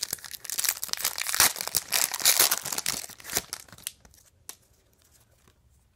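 Foil trading-card pack crinkling and tearing as it is opened, a dense crackle for about three and a half seconds, then a few light clicks.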